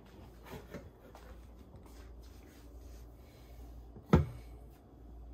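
A stand mixer's bowl being handled and shifted on its base, with faint rubbing and light knocks and one sharp knock about four seconds in.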